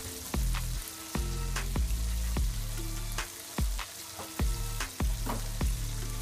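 Flour-battered chicken pieces deep-frying in a pan of hot oil, a steady sizzle. Background music with a regular beat plays over it.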